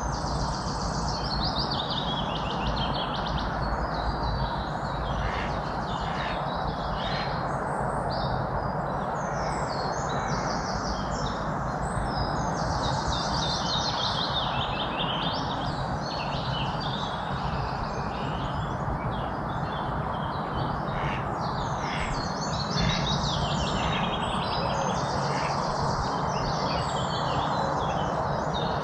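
Several birds singing and chirping at once, with many short, quick chirps and trills, over a steady background hiss.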